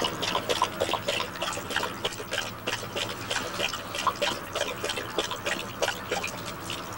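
A dog lapping water from a drinking fountain: a quick, irregular run of small wet splashes, several a second.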